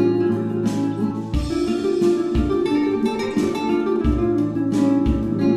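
Background music led by plucked acoustic guitar, with a steady low beat about once a second.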